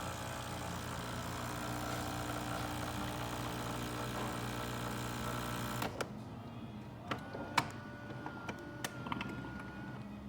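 Saeco Exprelia Evo espresso machine's pump humming steadily as a double shot brews, then cutting off abruptly about six seconds in at the end of the shot. A few light clicks follow.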